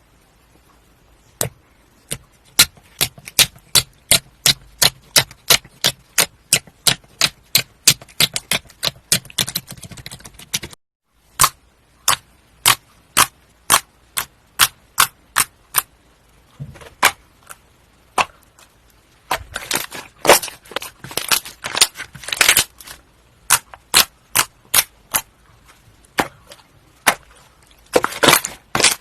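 Slime being pressed and poked, giving a series of sharp clicking pops a few times a second. The clicks stop briefly about eleven seconds in, then go on, with denser crackling runs later.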